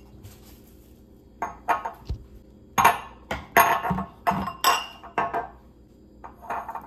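Glass condiment bottles clanking as they are set down one after another on a kitchen countertop beside a glass bowl: loud clanging, a quick series of knocks starting a little over a second in, with one last knock near the end.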